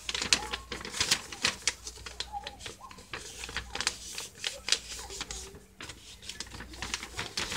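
A sheet of paper being folded and creased by hand: rustling with many small crackles and taps.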